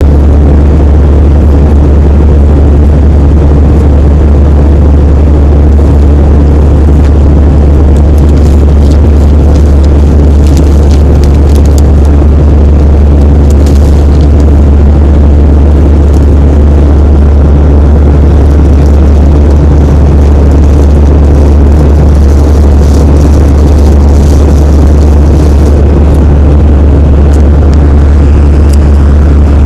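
Airplane engine noise: a loud, steady, low drone that holds unchanged throughout.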